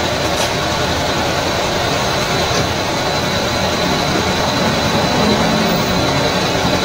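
Steady machine-like noise, a dense hum and hiss with a thin high whine held throughout.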